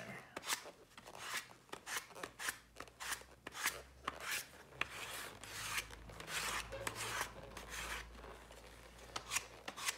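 Rough-grit hand sanding block rubbed over the edge of a leather insole in quick repeated strokes, roughly two or three a second, easing off near the end.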